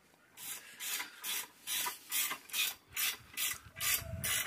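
Footsteps of someone walking, about two steps a second, each step a short scrape.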